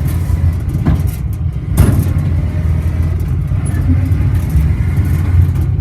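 Modified riding lawn mower's engine running loud and steady as it drives, with a couple of sharp knocks or rattles about one and two seconds in.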